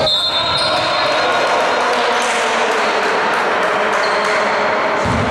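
Live basketball play on an indoor hardwood court: sneakers squeaking and the ball bouncing, with players' shouts mixed in.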